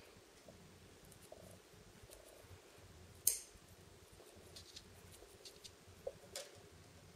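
Faint handling sounds of tatting: thread being drawn and a tatting shuttle worked through the fingers, with one sharp click about three seconds in and two smaller clicks near the end.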